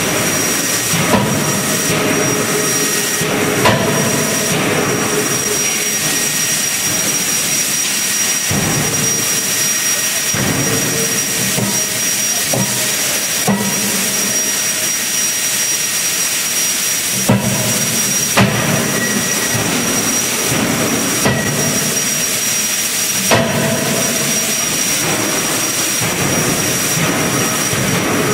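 CNC fully hydraulic close-die forging hammer (31.5 kJ) at work: a steady loud machine hiss with a constant high whine, broken by sharp blows of the ram striking the hot workpiece in the die, two in the first few seconds and four more spread over the second half.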